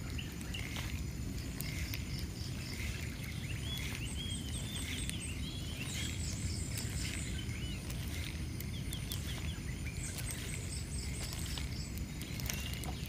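Several birds chirping and calling, short repeated high notes and rising chirps, over a low steady rumble.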